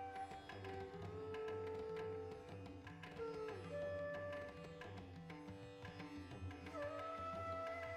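Instrumental background music in an Indian classical style: a melody of long held notes that slide into pitch over a steady drone, with a hand-drum rhythm underneath.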